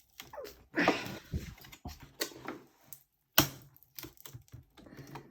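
Plastic parts of an old Asus laptop clicking and knocking as they are pried apart and handled, with one sharp crack a little over three seconds in.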